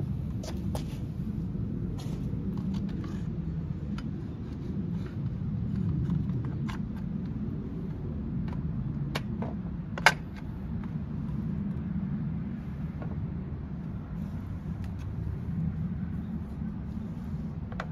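Hard plastic covers of a STIHL FS250 brush cutter's engine being handled and fitted back on: scattered light clicks and knocks, with one sharp click about ten seconds in, over a steady low rumble.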